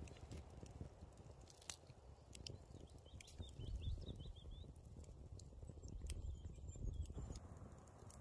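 Quiet hand sounds of a halved lemon being squeezed over a wooden bowl, with a few light clicks and taps.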